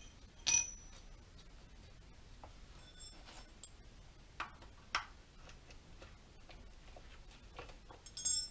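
Sharp metallic clicks and clinks, a handful spread out, with the loudest about half a second in and near the end briefly ringing. These are small metal parts and a tool being handled while the nuts are put on a chainsaw's bar and side cover.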